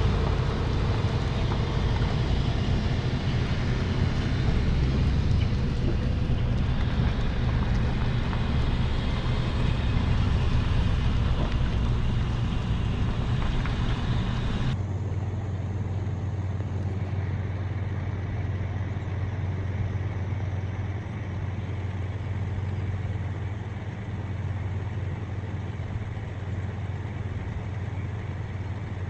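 A loader's engine running steadily as the machine drives slowly through floodwater over a road. About halfway through the sound changes abruptly, becoming quieter and duller.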